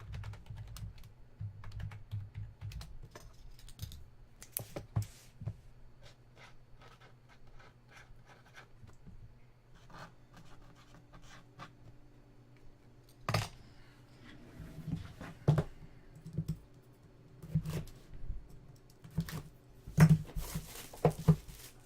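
Irregular light clicks, taps and scratches of hands working at a desk. A sharper knock comes about 13 seconds in, and the taps grow louder and more frequent toward the end. A low steady hum runs beneath.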